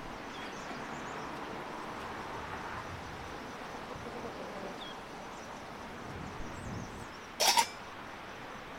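A single short, sharp metallic clink of a metal lid being lifted off a pot, much louder than the steady outdoor background, which carries a few faint bird chirps.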